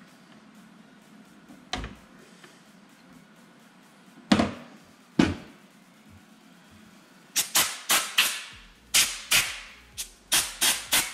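Sharp clicks and knocks from handling the intermediate transfer unit of a Konica Minolta C3070 as its first transfer rollers are popped out: three single knocks a second or so apart, then a quick irregular run of about ten.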